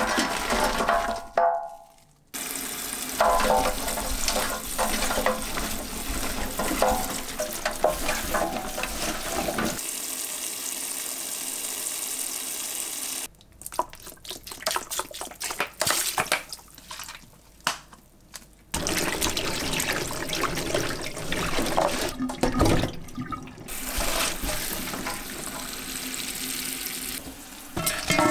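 Tap water running and splashing into a stainless-steel sink basin while snap pea pods are washed by hand. The sound drops out briefly about two seconds in and turns choppy, with short sounds and gaps, around the middle.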